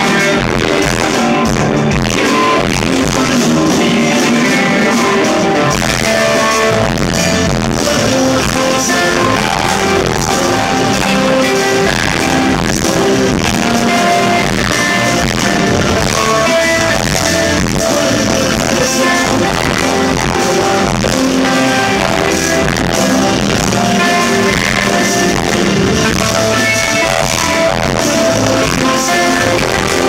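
Live progressive rock band playing full-on: electric guitars, drums and keyboards, with a sung lead vocal. It is a rough, poor-quality recording taken from the crowd.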